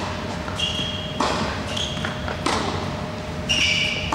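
Sharp thuds of a tennis ball being struck and bouncing, echoing in a large indoor hall, mixed with short high squeaks of tennis shoes on the hard court surface, the longest squeak near the end.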